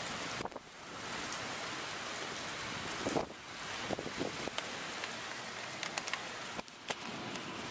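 Heavy rain falling steadily in a severe thunderstorm: a dense, even hiss with scattered drips and taps.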